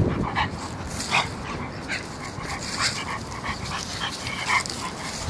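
A dog whimpering and yipping in short, high calls, about seven times.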